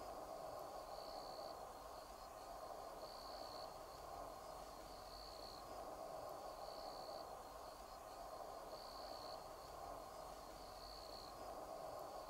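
Faint outdoor ambience: an insect chirping in short high bursts about every two seconds, over a steady background noise.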